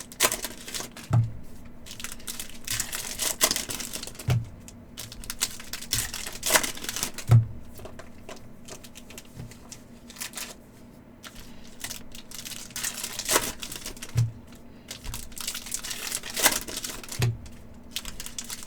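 Hockey trading cards being handled at a table during a pack break: irregular quick clicks and flicks of cards, a little crinkling, and soft thumps about six times as cards or stacks are set down.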